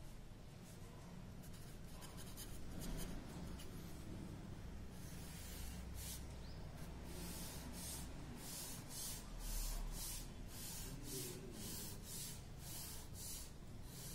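Pencil scratching on paper: light writing at first, then from about a third of the way in a run of quick strokes drawing lines, roughly two a second.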